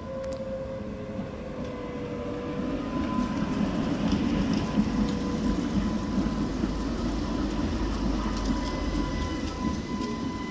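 Tatra T4D tram set pulling into a stop and rolling past close by. Its wheels rumble on the rails under a steady whine, and it grows louder as the cars come alongside.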